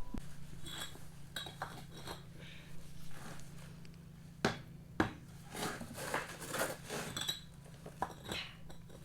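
Scattered, irregular clinks and knocks of hard bricks being handled and set down against one another while laying a brick floor, over a faint low hum.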